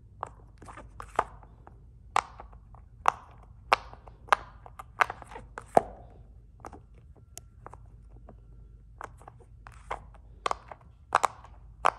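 Silicone pop-it fidget toy being pressed bubble by bubble, each bubble popping through with a sharp click, about one pop a second, a few softer ones in the middle.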